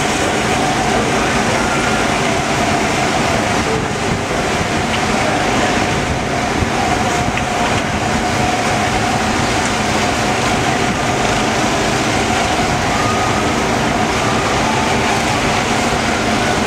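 Steady amusement-park din heard from a Ferris wheel gondola: a continuous even noise with a faint steady hum running through it.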